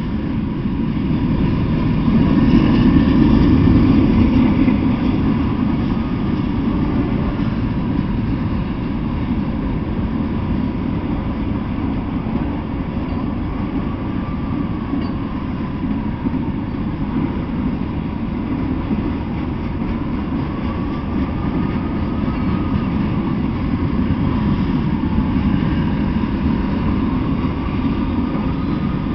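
Freight train cars, covered hoppers and a lumber-loaded flatcar, rolling past close by in a steady rumble that grows louder for a few seconds about two seconds in. A faint wavering squeal rises and falls now and then.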